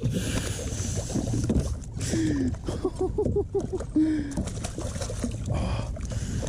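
Water sloshing and splashing around a kayak with a steady hiss, while a man makes a few short wordless vocal sounds in the middle.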